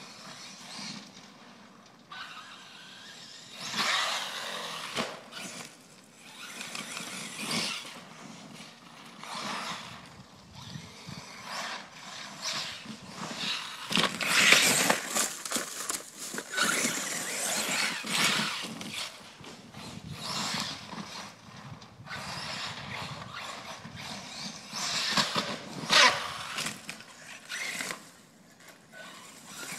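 Vorza radio-controlled truck on Badlands tires driving hard over loose dirt and gravel: the motor running and the tires churning and spraying dirt in uneven bursts that rise and fall, loudest about four seconds in, in the middle and near the end.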